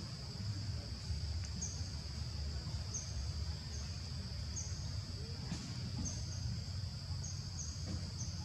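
Steady high-pitched insect drone, with short high chirps repeating irregularly about once a second above it, over a low rumble.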